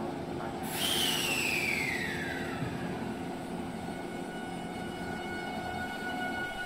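JR 383-series electric express train moving along the platform. About a second in, a sudden hiss comes with a whine that falls in pitch over a couple of seconds, then several steady high whines hold over the train's running rumble.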